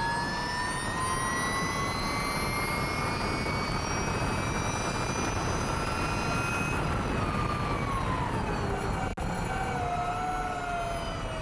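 Ducati V21L electric race motorcycle's motor whine heard onboard, rising steadily in pitch as it accelerates down a straight, over wind rush. About seven seconds in the pitch falls as the bike slows for a corner, with a brief dropout a little after nine seconds, then the whine wavers at a lower pitch.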